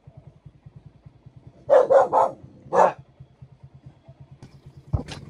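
A dog barking: three quick barks about two seconds in, then one more a moment later, over a low steady hum.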